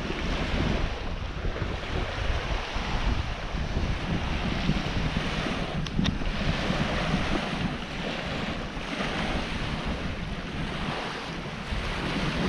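Strong sea waves washing in, with wind rumbling on the microphone.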